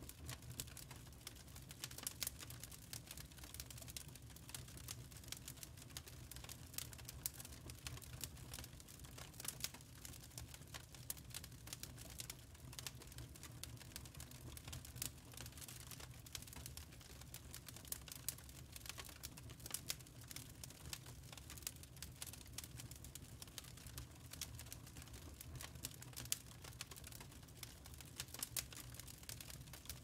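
Wood fire burning in a fireplace, crackling with many small irregular pops and snaps over a low steady rumble.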